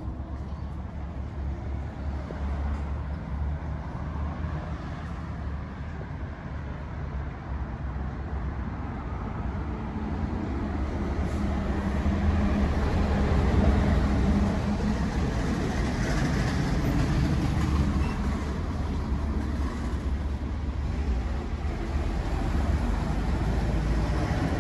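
Street ambience: a steady low rumble of road traffic that grows louder from about halfway through.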